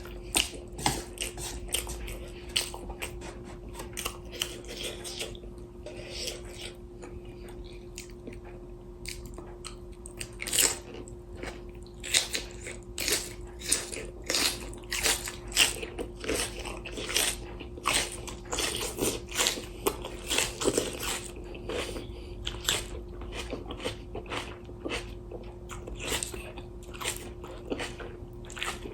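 Close-miked chewing and crunching of spicy instant noodles and fresh cabbage kimchi: many short, irregular crunchy bites, with a steady low hum underneath.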